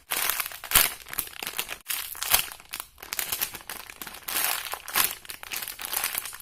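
Crinkly plastic packaging being handled and squeezed: a continuous run of crackles with sharper snaps every second or so.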